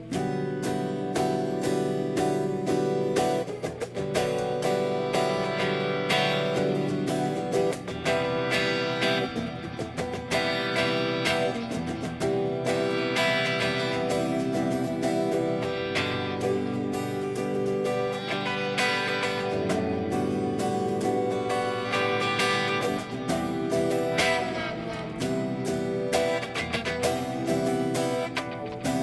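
Guitar music: a guitar plucked and strummed, with a busy stream of picked notes over held chords.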